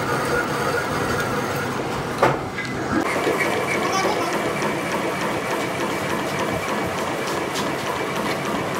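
Metal lathe running while cutting new threads on a truck's rear axle spindle: a steady mechanical whir with a thin steady whine. One sharp metallic clank about two seconds in.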